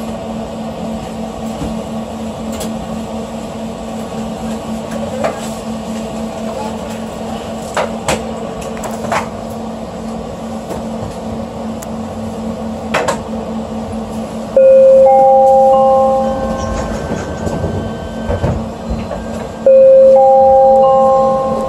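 SkyTrain car standing at a station platform with a steady hum and a few light knocks, then its door-closing chime, a loud series of rising tones, sounding twice, about two-thirds of the way in and again near the end.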